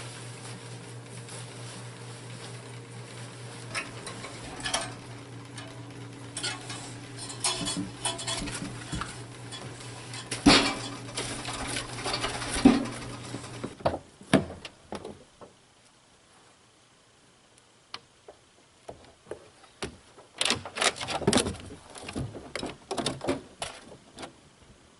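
Dishes and pans clattering and clinking in bursts, with a steady low hum that cuts off about halfway through.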